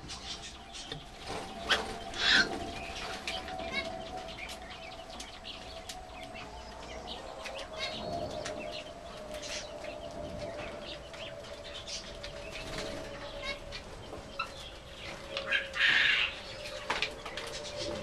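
Zebra finches calling in short, nasal beeps with many small clicks and chatter, and a louder burst of calls or wing flutter about two seconds in and again near the end. A faint steady hum runs underneath.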